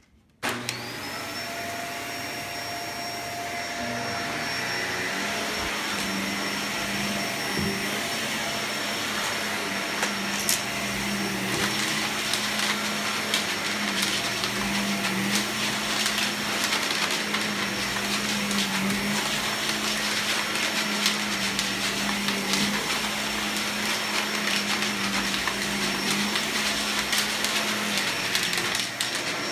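Shark vacuum cleaner switched on about half a second in, its motor spinning up with a rising whine and then running steadily while vacuuming. Frequent ticks and clanks run through it: debris clanking around in the dirt cup.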